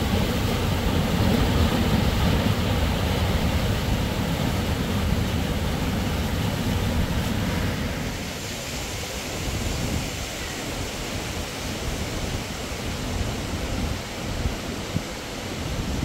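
Steady rushing noise of a waterfall, deep and heavy in the first half, easing to a lighter rush from about halfway.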